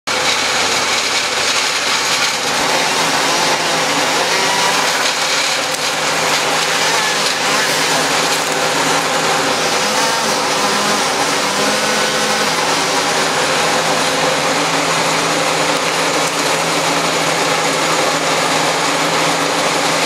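Bandit hand-fed wood chipper running at a steady speed, its engine droning evenly.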